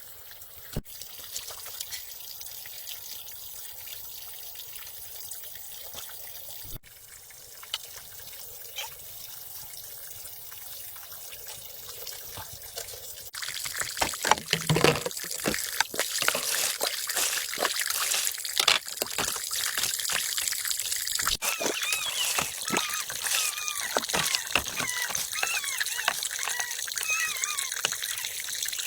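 Water trickling and splashing, growing louder and busier about halfway through.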